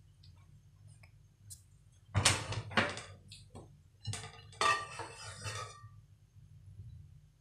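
Kitchenware clattering: a metal spatula and an aluminium pan knocking, and a glass plate handled on the table while rice-flour dough is moved onto it. There are two sharp knocks about two seconds in, then a longer rattling clatter with a brief ring.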